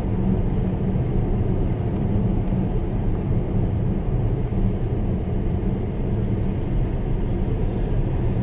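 Steady road and tyre noise with a low rumble, heard inside the cabin of a Tesla Model S electric car cruising at about 90 km/h.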